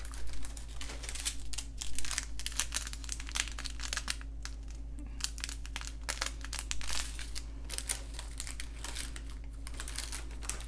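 Plastic bags crinkling and rustling as small plastic baggies of diamond-painting drills are handled and shuffled, a steady stream of irregular crackles.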